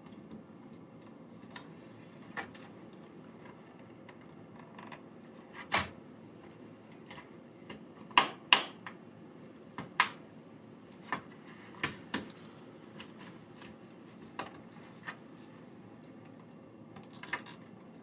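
Scattered sharp plastic clicks and snaps from a laptop's plastic bottom cover being pried and eased off its base, the loudest pair about eight seconds in.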